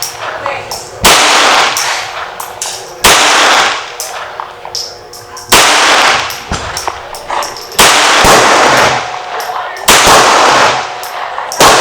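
Colt Service Model Ace .22 rimfire 1911 pistol firing six slow, single shots about two seconds apart. Each shot is sharp and followed by a short ringing tail.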